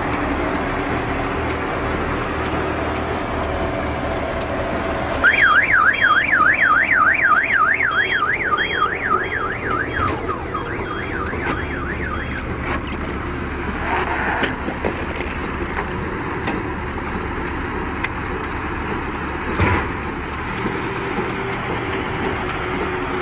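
An electronic warning alarm wails rapidly up and down, two to three sweeps a second, for about seven seconds before fading out. Under it runs the steady noise of round baling machinery, with a single knock near the end.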